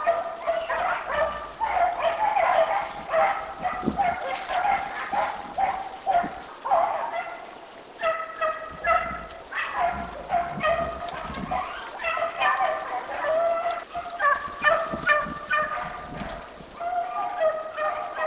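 Pack of beagles baying, many voices overlapping in a continuous chorus of drawn-out bawls and short yips, easing briefly twice before picking up again.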